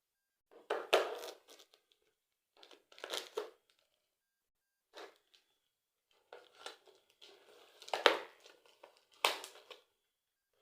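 Packaging being handled while a speaker system is unboxed: crinkling and crumpling in several separate bursts, with a couple of sharp knocks near the end.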